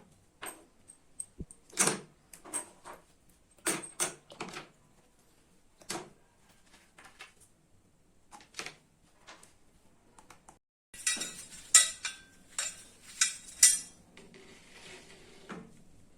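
Metal parts and tools clinking and knocking as they are handled and set down on a workbench: scattered single knocks, then a quicker run of louder ringing clinks about two-thirds of the way through.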